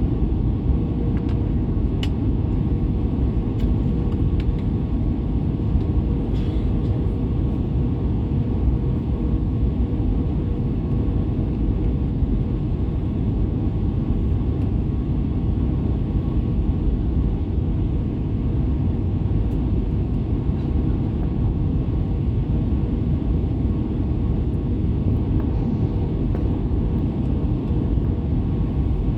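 Airbus A320 cabin noise on final approach: a steady, even rumble of engines and airflow, with a faint steady hum running through it.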